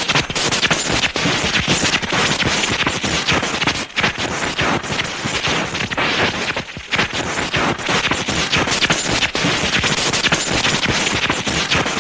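Dragon Ball Z electricity sound effect: dense, continuous crackling of electric sparks, like a charged energy aura. It dips briefly about four seconds in and again near seven seconds.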